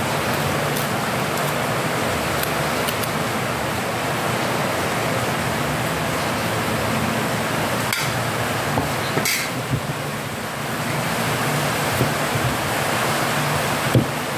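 Heavy rain falling in a steady hiss, with a few brief clicks of a knife against a metal plate and cutting board.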